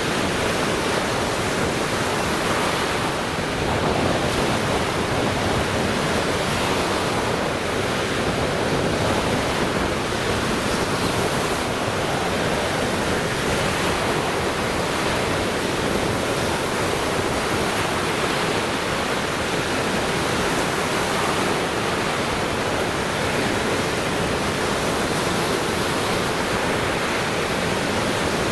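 Lake Michigan waves washing onto the shore, a continuous steady rush of surf.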